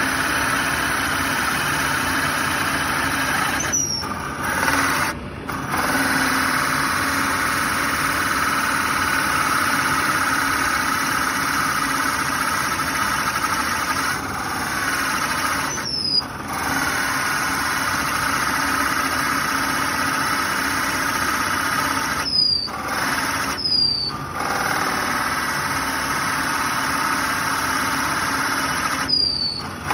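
Drill press running a Forstner bit that bores into a small round block of wood, a steady cutting whine. The sound briefly dips several times.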